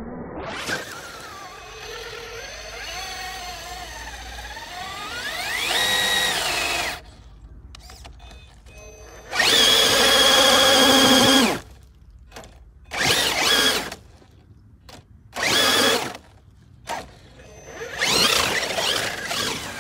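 Axial SCX6 RC crawler's brushless motor and gearbox whining under throttle, pitch rising and falling with speed. A long pull for the first several seconds, then four short bursts of throttle with pauses between as the truck climbs.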